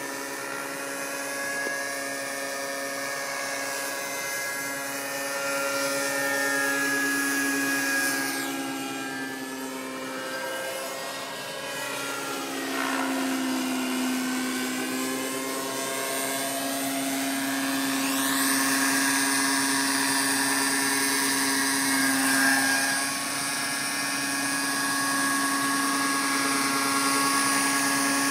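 Radio-controlled MD 500 scale model helicopter in flight: a steady high whine from its motor and rotors. The pitch dips and recovers about halfway through, and the sound grows louder toward the end as the helicopter comes in low.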